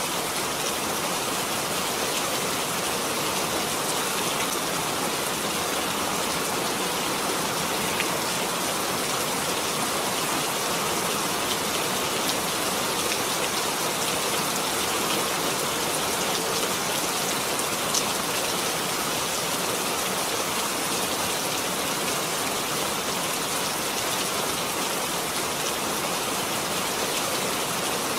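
Steady rain falling, an even hiss of many drops, with a couple of sharper single drop ticks standing out.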